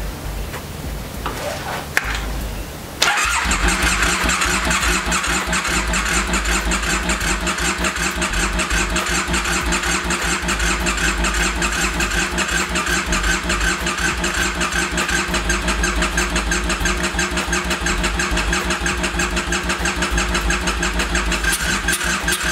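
Electric starter cranking the Triumph Bonneville Scrambler's 865 cc parallel-twin engine over in a steady fast rhythm, without it catching. The cranking starts about three seconds in, just after a click, and stops suddenly at the very end.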